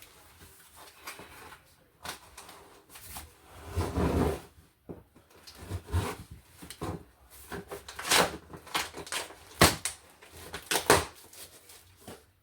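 A cardboard shipping box being handled and worked open: irregular knocks, scrapes and rustles of cardboard and packaging, with a longer scraping, tearing stretch about four seconds in.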